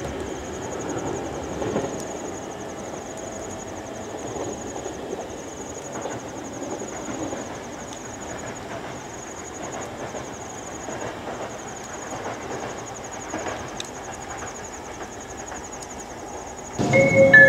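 JR East 719 series electric train running away into the distance, a faint steady rumble of wheels on the rails. Near the end a louder sound with several held tones cuts in.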